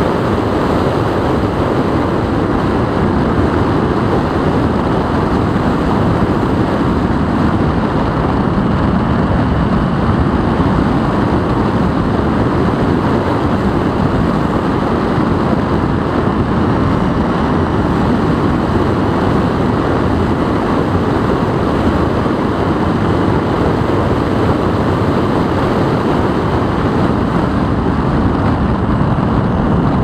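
Steady, loud rush of air and wind buffeting on the microphone of the camera carried aboard a Mini Talon FPV plane in flight.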